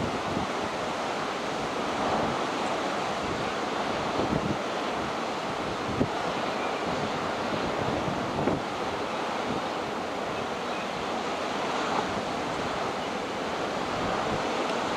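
Rough sea surging and breaking, a steady wash of surf, with wind rumbling on the microphone and a few brief bumps from gusts.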